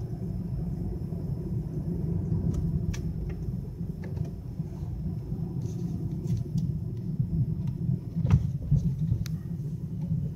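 Steady low road and engine rumble of a moving car, heard from inside the cabin, with a few faint clicks and a brief louder thump about eight seconds in.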